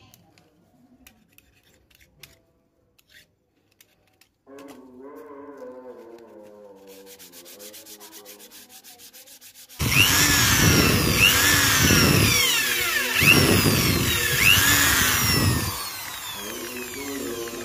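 Sandpaper rubbing hard on a wooden stick being smoothed by hand for a handmade fishing rod, scratchy with repeated squeaks. It gets loud about ten seconds in and eases off about two seconds before the end.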